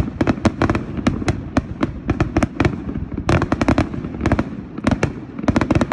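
Fireworks display in a rapid barrage: many sharp bangs a second, one after another, over a continuous low rumble of bursts.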